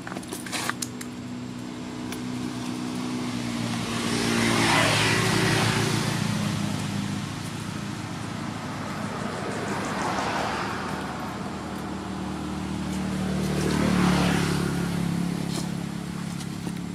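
Motor vehicles driving past on a road, one after another, each growing louder and then fading with a falling engine pitch; three passes peak about five, ten and fourteen seconds in.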